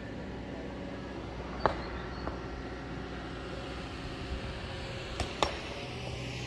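An engine running steadily with a low hum, with a few sharp clicks over it: the loudest about a second and a half in, and two close together near the end.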